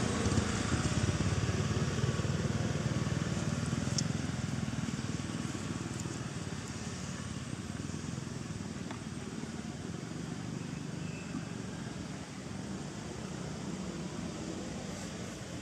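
Steady low rumble of a motor vehicle running, slowly fading, over steady outdoor noise, with a couple of faint clicks.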